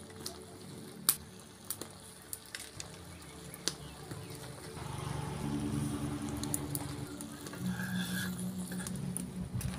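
Cabbage stir-fry sizzling in a large aluminium wok over a wood fire, with scattered sharp pops and crackles. The sizzle grows louder about halfway through.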